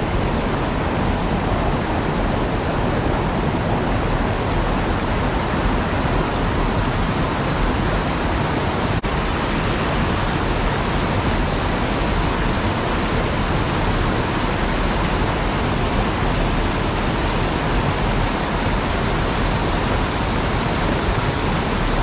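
Mountain stream water pouring steadily over a small concrete weir and rushing through the whitewater just below it, heard close up as a loud, even rush.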